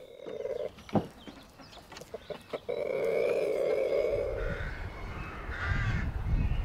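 Rooster crowing: one long call of about a second and a half, a few seconds in.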